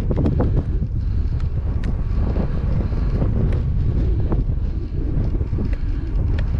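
Wind buffeting the microphone on a moving bike: a loud, uneven low rumble with a few short clicks scattered through it.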